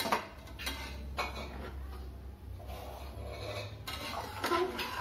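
A stainless steel spatula scraping and knocking against the sides of an aluminium pressure cooker as freshly pressure-cooked rice is stirred and fluffed: a few sharp scrapes in the first second or so, the first the loudest, and more near the end.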